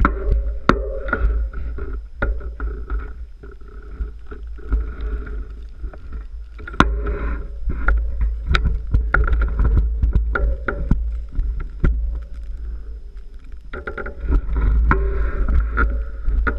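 Wind rumbling and buffeting on a bike-mounted action camera's microphone, with many sharp clicks and knocks from the mount and housing.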